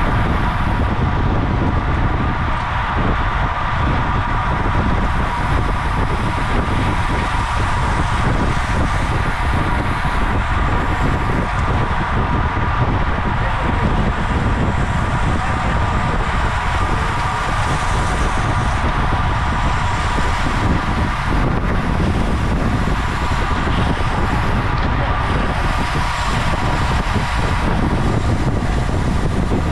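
Steady wind rushing and buffeting over the microphone of a camera mounted on a road racing bicycle at race speed, with a faint steady whine underneath.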